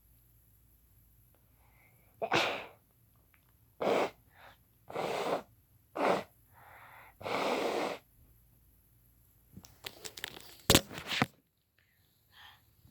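A person sneezing several times in a row, some sneezes sharp and sudden, others longer breathy blasts. Near the end comes a quick run of sharp crackles and clicks.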